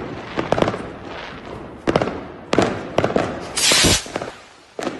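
Fireworks going off: irregular sharp bangs and pops, a dozen or so, with a brief loud burst of hissing crackle a little past three and a half seconds in.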